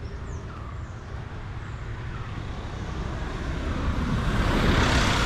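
A motor vehicle approaching and passing close by on the road, its engine and tyre noise growing steadily louder to a peak near the end.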